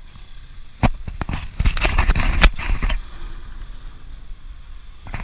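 Riding noise picked up by a bicycle-mounted action camera: wind rushing over the microphone and the rattle of the bike over the road surface. There is a sharp knock about a second in and a louder, rougher stretch from about one and a half to three seconds, then a steadier, quieter rush.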